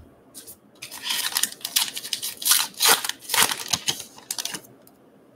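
Wrapper of a Gypsy Queen baseball card pack being torn open and crinkled by hand: a run of scratchy rustling and tearing that starts about a second in and stops shortly before the end.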